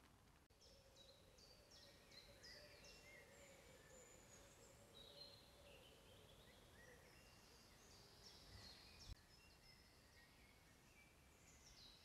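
Faint woodland birdsong: several small birds chirping and trilling, with a faint steady hum for the first half and a single soft knock about nine seconds in.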